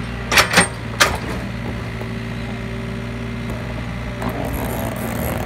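Mini excavator's diesel engine running steadily, with three sharp clanks in the first second or so as the arm brings the bucket down onto the dirt pile.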